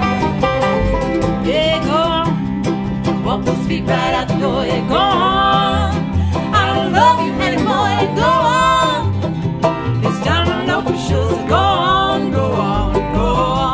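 Bluegrass band playing: banjo, mandolin, fiddle, acoustic guitar and upright bass, with a sliding melody line over a steady bass.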